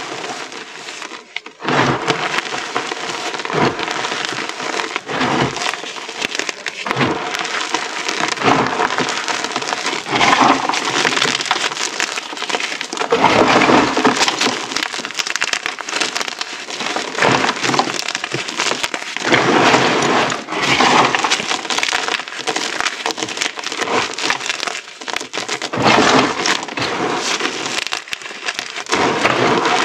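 Crunchy pink-dyed gym chalk crushed and crumbled in bare hands: a dense, continuous crackling crunch, with broken pieces pattering back onto the chalk pile. It comes in uneven squeezes, louder in a few stretches.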